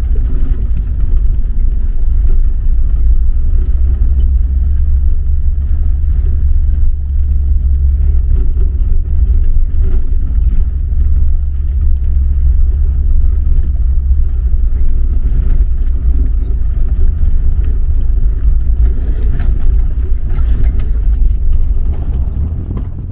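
Volkswagen Kombi van driving, its engine and road noise making a steady low drone that eases slightly near the end.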